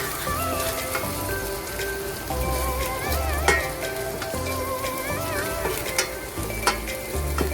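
Minced meat and bolognese sauce sizzling in a frying pan, a steady hiss with a few sharp clicks about three and a half, six and near seven seconds in, under background music with a wavering melody and bass notes.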